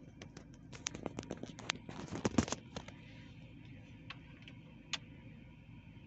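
A quick run of sharp clicks and rattles, densest and loudest about two seconds in, then a few single clicks, over a steady low hum inside a car cabin.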